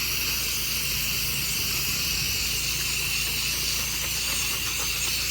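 Pressure washer wand spraying a steady jet of water with an unbroken hiss, and a low hum from the machine running underneath.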